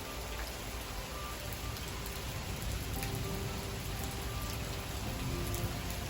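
Steady rain, a dense even hiss, with a soft melody of short notes faintly underneath.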